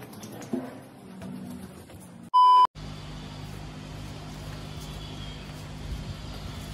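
A short, loud electronic beep, a single steady tone lasting under half a second, about two and a half seconds in. It is followed by a steady low hum.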